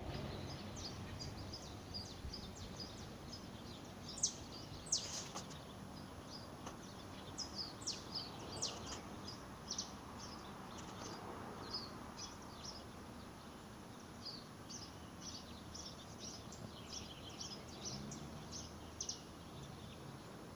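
Small birds chirping: many short, high, sharp calls in quick scattered runs, over a steady outdoor background hiss.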